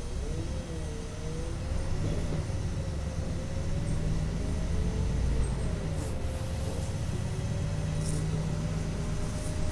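LiAZ-5292.22 city bus heard from inside the cabin while driving: a steady low engine and road rumble under a wavering whine. A few brief hisses come near the middle and end.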